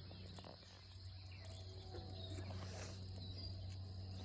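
Faint outdoor background: a steady high insect drone, typical of crickets, over a constant low hum, with a few faint brief sounds midway.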